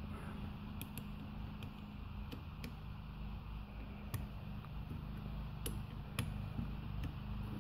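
Scattered light metal clicks of a small combination wrench and steel bolts on a starter motor's end cap as the 8 mm bolts are loosened and turned out, about seven clicks at irregular intervals. A steady low hum runs underneath.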